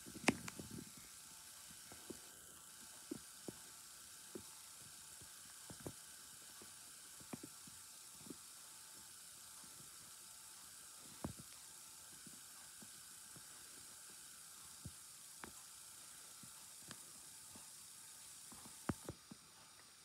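Near silence from a TV playing a VHS tape's silent copyright-warning screen: a faint steady hiss with scattered soft clicks and ticks, roughly one every second or two.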